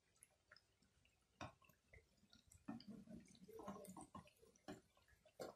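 Faint, scattered crackles and drips from banana flower vadas deep-frying in oil, as a wire spider strainer lifts them out.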